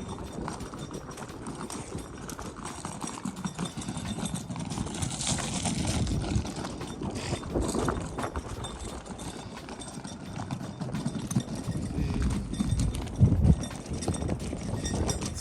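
Footsteps walking at an irregular pace, with scattered crunches and a few louder thumps.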